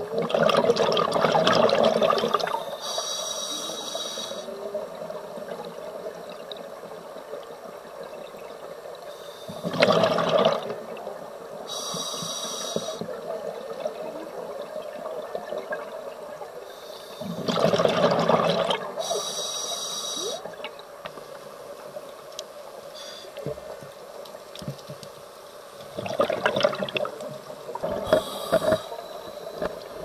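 Scuba diver's breathing through a regulator, heard underwater. Four exhalations of bubbles, each followed about two seconds later by a hissing inhalation with a thin high whine, repeating about every eight seconds.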